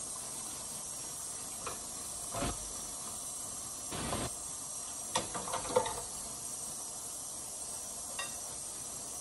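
Breaded fish frying in oil in a skillet, a steady high sizzle. Light clinks and knocks of a metal fork and spatula against the plate and cutting board cut in a few times, clustered around the middle.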